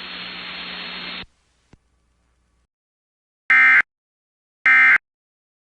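Weather-radio receiver static hiss that cuts off about a second in, then a faint click. Then come two short, identical, buzzy data bursts about a second apart: the EAS/SAME end-of-message data bursts that close out a NOAA Weather Radio alert.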